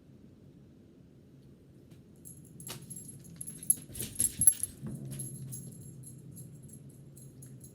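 A dog moving about with its collar tags jingling, with a few sharp clinks loudest about four seconds in.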